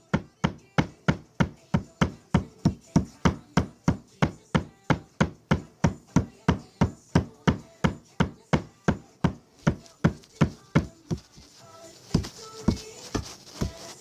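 A rapid, even series of sharp knocks, about three a second, that stops about eleven seconds in. A few irregular knocks follow near the end.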